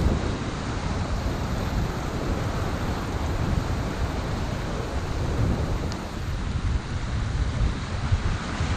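Wind buffeting the microphone with an uneven low rumble, over the wash of waves breaking on the jetty rocks below.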